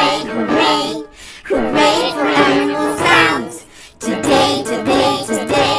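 Children's song vocals sung in phrases about a second long, with short gaps between them, remixed with several pitch-shifted copies of the voices layered on top of one another.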